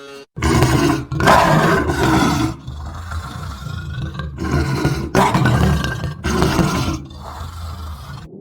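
Tiger roaring: a series of rough, growling roars broken by short pauses.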